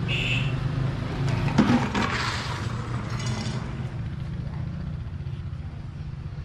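A motorbike engine running with a low hum that fades away about five seconds in. A few light clinks and clatters come around two seconds in.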